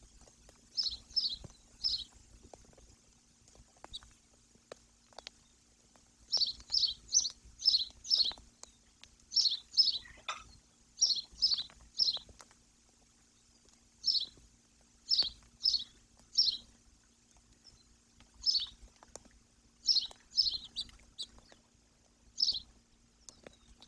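A bird calling: short, high, downward-slurred chirps in quick runs of two to five, repeated with pauses throughout.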